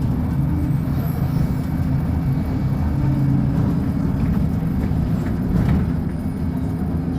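Diesel engine of a Volkswagen 17-280 OT bus with a Caio Millennium BRT body, running with a steady low drone.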